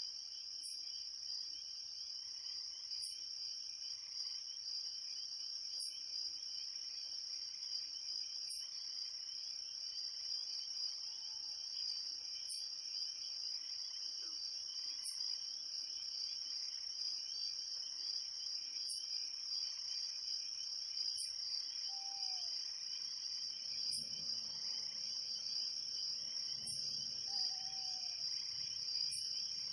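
Crickets chirping in a steady dense chorus, with a short high chirp repeating about every two and a half seconds over it.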